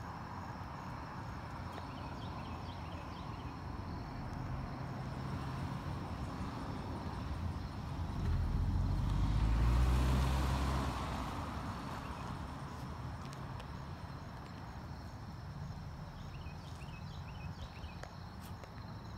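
A car passing along the street, building to its loudest about halfway through and then fading away, over a steady chirping of insects.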